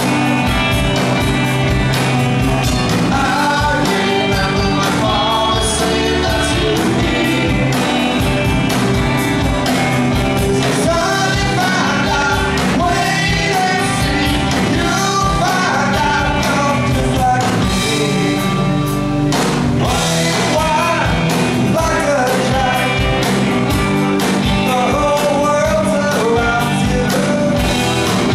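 Live rock band playing loud and steady: a male singer singing over distorted electric guitars and a drum kit, heard through the club's PA.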